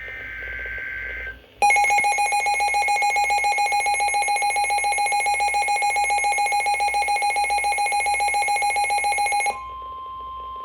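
Emergency Alert System tones on a weather radio broadcast. A short warbling burst of SAME header data opens it, followed by a loud, rapidly pulsing electronic alarm beep for about eight seconds. Near the end this switches to a quieter steady single-pitch tone, the NOAA Weather Radio warning alert tone, announcing a severe thunderstorm warning.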